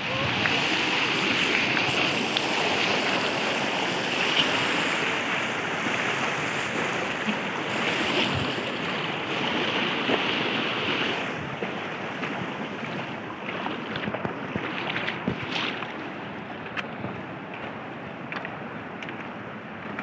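Shallow rocky stream rushing over stones in a steady rush of water, which drops off somewhat about eleven seconds in. A few light clicks come in the second half.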